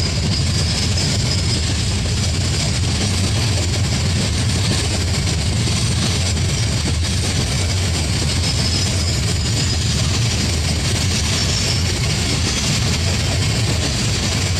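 Train passing close by: a steady rumble of rolling wheels and a low hum that keeps an even level throughout.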